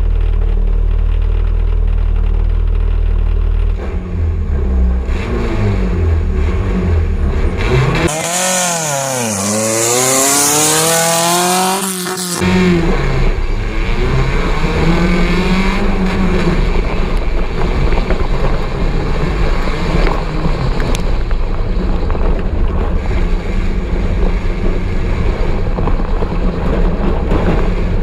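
Off-road buggy engine heard onboard, running hard and changing pitch as the throttle comes on and off. About eight seconds in, the engine note drops and climbs back under a loud rushing hiss for about four seconds, then it carries on revving up and down.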